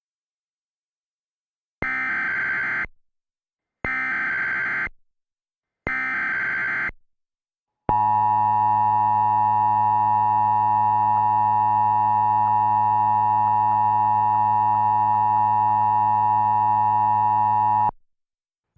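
Emergency Alert System broadcast tones: three one-second bursts of SAME header data, then the two-tone attention signal held steady for about ten seconds before cutting off.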